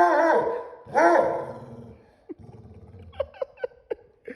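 A dog vocalizing: two drawn-out, wavering whine-howls, then several short high yelps near the end.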